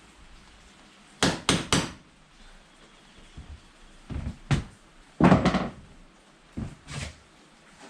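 Knocks and thuds on wood as a wooden piece is worked into place: a quick run of three sharp knocks about a second in, then scattered thuds, with a longer scraping knock about five seconds in.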